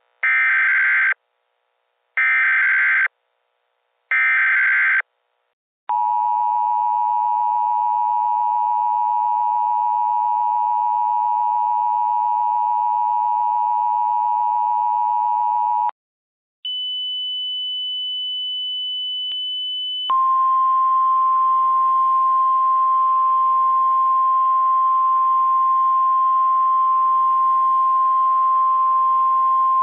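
Synthesised Emergency Alert System (EAS) alert: three one-second bursts of SAME header data, then the two-tone attention signal held for about ten seconds. After a short gap, a high steady beep sounds for about three seconds. Then a single lower steady tone runs over static for the last ten seconds.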